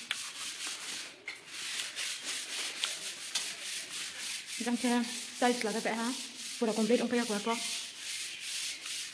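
A steady, scratchy rubbing noise, high and hissy, with a fast even texture. A voice speaks briefly in the middle, three short phrases.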